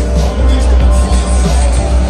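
Loud music with a heavy bass line, played over a stadium's sound system.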